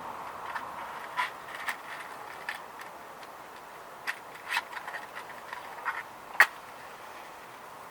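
Wood fire in a SOOMLOOM secondary-combustion fire pit burning with a low hiss and irregular crackles and pops, one much louder pop near the end.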